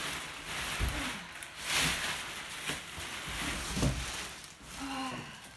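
Irregular rustling and shuffling of a new dog bed being handled, loudest about two seconds in, with a short low voiced sound near the end.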